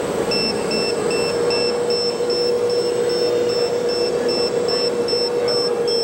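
Radio-controlled construction models at work: a steady whine runs throughout under rapid high-pitched electronic beeping, about two and a half short beeps a second, like a model's warning beeper.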